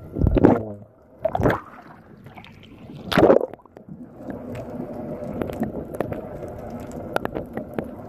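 Water sloshing and gurgling around a submerged camera: three loud surges in the first three and a half seconds, then a steady muffled underwater rush with scattered clicks.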